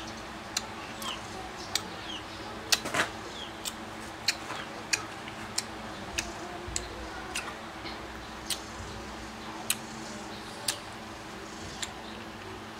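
A series of sharp, short clicks at irregular intervals, roughly one a second, with the loudest cluster about three seconds in, over faint short high squeaks.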